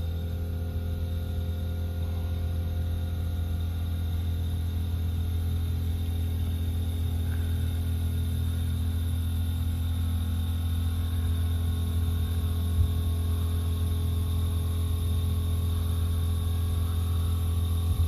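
Bosch heat pump's outdoor unit running: compressor and outdoor fan making a steady low hum with several steady higher tones over it, on a system that is low on refrigerant.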